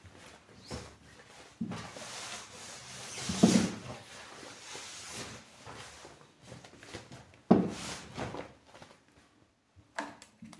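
Rustling and crinkling of a deflated inflatable car-seat mattress's shiny plastic sheeting as it is spread out and handled, with louder handling bumps twice and a few small clicks near the end as its valve is opened.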